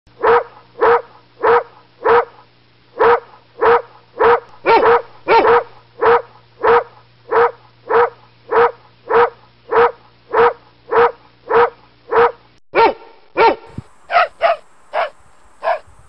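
A dog barking over and over in a steady run of single barks, about one and a half a second, then a few more unevenly spaced barks near the end. A low steady hum lies under the barks and stops about three-quarters of the way through.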